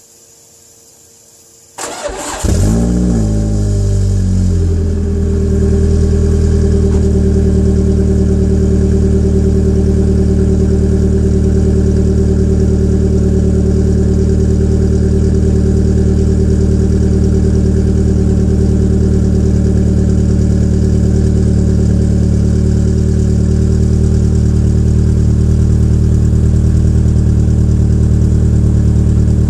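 Peugeot 807's 2.0-litre EW10J4 four-cylinder petrol engine cold-started with the rear silencer removed. After a brief crank it fires about two seconds in, flares up for a few seconds, then settles into a steady cold idle. The owner puts the rough cold idle down to tight valve lifters, typical of some PSA EW engines.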